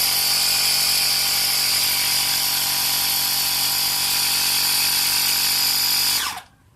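Workzone Titanium 20V cordless air compressor running steadily while inflating a flat tyre, a loud motor-driven pump with a steady high whine. About six seconds in it shuts off and spins down quickly, its pitch falling.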